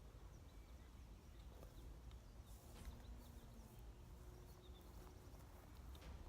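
Near silence: faint outdoor ambience with a low rumble and a few short, faint bird chirps.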